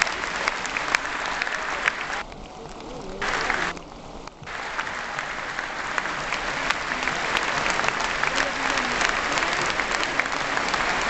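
Large arena audience applauding, dense and steady, briefly muffled a couple of seconds in.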